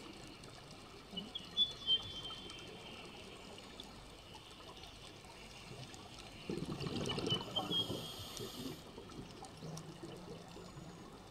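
A scuba diver breathing, heard muffled through an underwater camera housing. There is a short regulator inhale with a brief thin whistle near the start, then a louder burst of exhaled bubbles gurgling past in the middle, over a faint hiss with scattered faint clicks.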